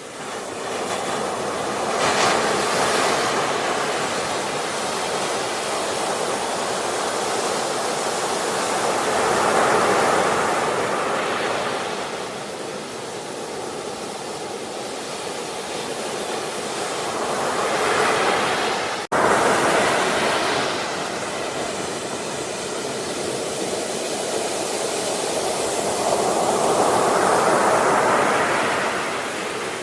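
Ocean waves breaking and washing up the shore in slow swells every several seconds. A brief cut in the sound comes about two-thirds of the way through, where the recording jumps.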